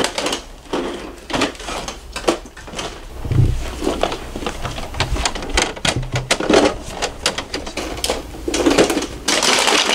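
Plastic toy garbage truck clattering as it is handled and pushed along: a busy run of small clicks and knocks, with a few low thumps and a rustling stretch near the end.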